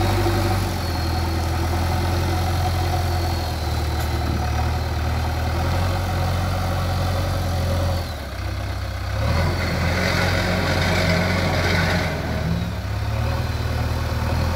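JCB 3DX backhoe loader's diesel engine running steadily, dipping briefly about eight seconds in and picking up again.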